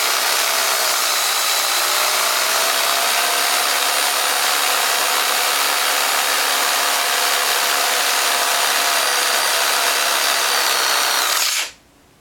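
Bosch PFZ 550 E reciprocating saw running at a steady speed, a dense hiss with a faint whine, then switched off and cutting out near the end. Its motor bearing has failed and spun in its seat, and the overheating motor is giving off smoke.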